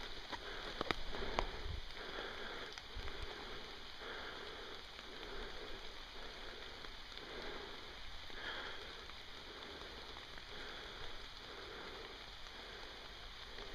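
Steady rain falling on forest leaves, with footsteps through wet undergrowth at a walking pace, about one step every three quarters of a second. A couple of sharp clicks about a second in.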